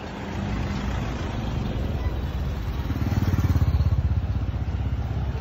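A motor vehicle's engine running close by in street traffic, with a rapid even pulse that grows louder about three seconds in and eases near the end.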